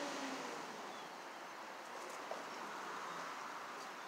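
Steady rush of a shallow creek running over a rocky riffle. The low drone of a vehicle passing on the bridge above fades out just at the start, and there is a small click a little past halfway.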